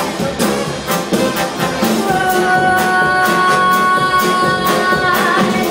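Big band playing live: brass and a steady percussive beat, with one long held note from about two seconds in until near the end.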